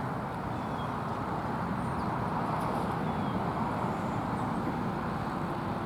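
Steady outdoor rumble of distant road traffic, with a few faint, short, high bird chirps scattered through it.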